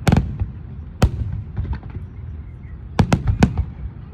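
Fireworks going off: a sharp bang right at the start, another about a second in, and a quick run of several bangs around three seconds in, with smaller crackles and a low rumble between them.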